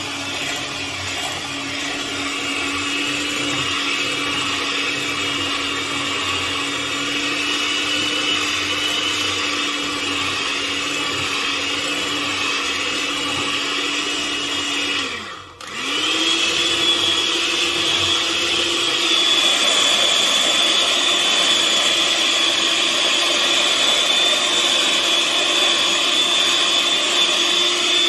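Electric mixer whipping cream until fluffy, its motor running steadily. About halfway through it slows, cuts out for a moment and starts again at a slightly higher speed.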